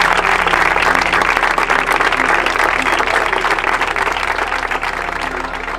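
A crowd applauding, many hands clapping, fading away near the end.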